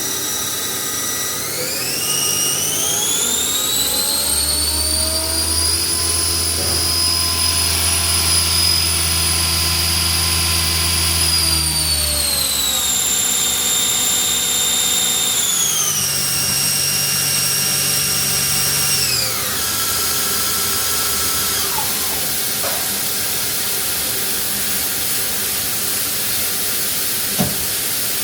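Main spindle of a Hardinge GS-51 CNC turning center: its drive whine rises as it spins up about two seconds in and holds steady for several seconds. It then winds down in steps, leaving the machine's steady hum, with a small click near the end.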